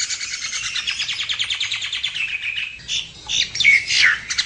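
Common myna (jalak nias) singing: a fast run of repeated notes lasting nearly three seconds, then a few separate, varied calls, and another fast run beginning near the end.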